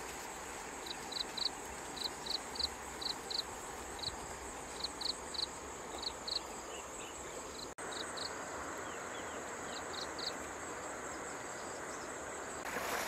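Outdoor insect ambience: a steady high-pitched insect drone with short high chirps in groups of two or three, repeating about once a second, over a soft hiss. The chirps thin out in the second half.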